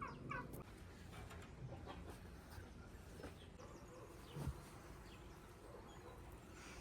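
Chickens clucking faintly in a few short calls, with one soft knock about four and a half seconds in.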